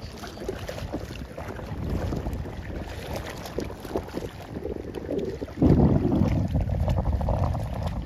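Wind buffeting the microphone: a low, uneven rumble that suddenly gets louder about two-thirds of the way in as a stronger gust hits.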